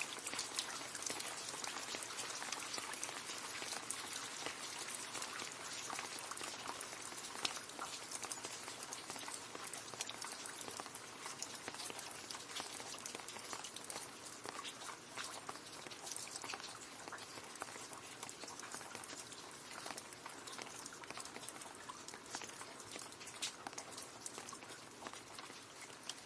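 Steady rain falling into a puddle: a dense patter of many small drops splashing, with sharper individual drop ticks scattered through it, easing a little toward the end.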